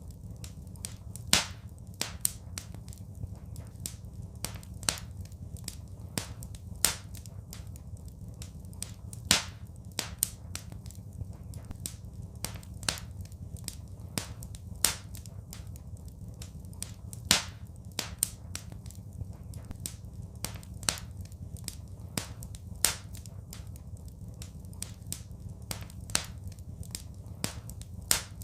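Wood fire in a fireplace crackling: irregular sharp pops and snaps, a few much louder than the rest, over a steady low rumble.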